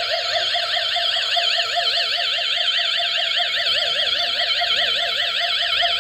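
Electronic sound effect of a battery-powered toy pistol: a steady warbling tone that swings quickly and evenly up and down in pitch, like a toy siren.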